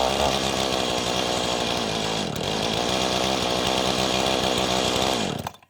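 Poulan Pro 5118 chainsaw's 51 cc two-stroke engine, its muffler modified with an extra, bigger hole, running steadily, then shutting off near the end and cutting to silence.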